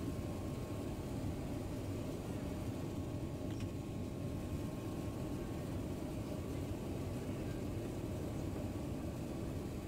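Steady airliner cabin noise on the approach to landing: a low rumble from the engines and air rushing past the fuselage, heard from inside the cabin, with a faint steady high tone over it.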